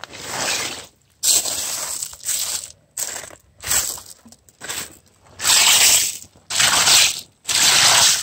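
Wet gravel and small fossil-bearing stones scraping and rattling in a mesh sifting screen as a hand rakes through them, in a series of short crunching scrapes with brief pauses between.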